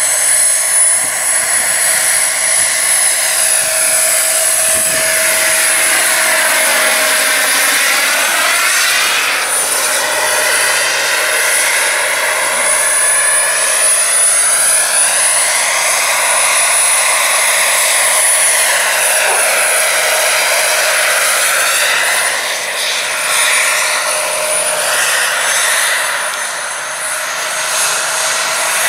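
Gas-turbine engine and rotors of a giant radio-controlled Bell 412 scale model helicopter in flight. A steady high turbine whistle sits over a dense rush of jet and rotor noise, and the tone sweeps and shifts as the helicopter moves about.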